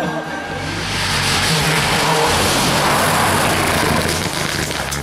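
Rally car engine at full throttle passing close by, with a loud rush of tyre and road noise that builds about a second in and eases near the end.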